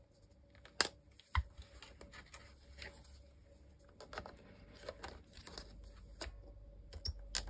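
Small plastic clicks and rubbing as a battery is pushed into a Canon EOS 2000D's battery compartment and the camera is handled, with two sharp clicks about a second in and a few more clicks near the end.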